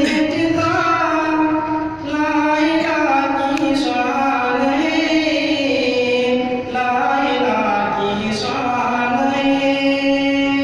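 A young man's solo voice chanting a melodic recitation, drawing out long held notes that rise and fall, with short pauses for breath about two seconds in and again past the middle.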